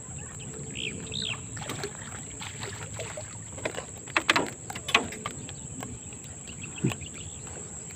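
Steady high-pitched insect drone, like crickets, with scattered clicks and a few short knocks from line handling.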